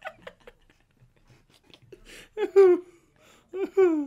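A man laughing: after a quiet start, a loud high laugh falling in pitch about halfway in, then two shorter falling laughs near the end.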